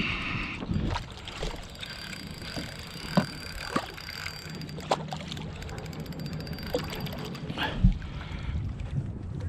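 Small-boat handling noise while a hooked fish is reeled in: scattered knocks and clicks over a low rumble, with a faint steady whine for a few seconds in the middle.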